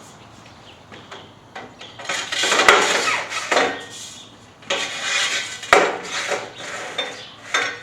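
Aluminum tube scraping as it is slid into a vinyl gate upright, in two long rubbing pushes, each with a sharp knock.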